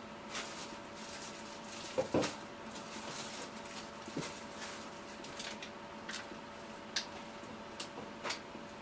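Light knocks and clicks of kitchen dishes and utensils being handled during cooking, scattered and irregular, the loudest a pair of knocks about two seconds in. A steady low hum runs underneath.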